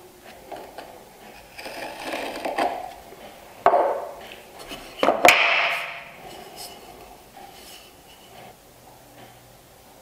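A marking knife scratching along a wooden board, then two sharp wooden knocks about a second and a half apart as pieces are set down on the wooden workbench, followed by quieter handling of the boards.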